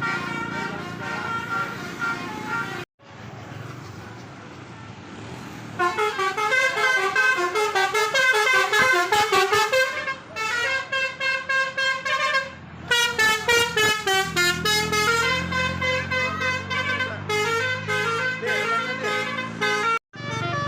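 Basuri 'telolet' multi-tone musical car horn playing quick tunes of stepped notes, some passages in rapid short honks. For a few seconds near the start there is only road and engine noise, then the horn tunes resume.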